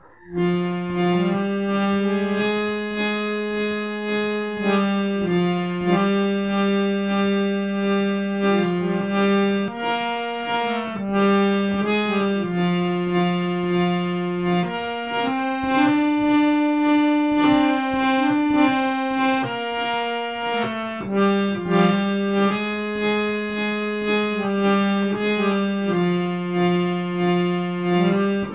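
Harmonium playing a tune: held reedy notes, with a sustained lower chord under a changing melody, starting about half a second in.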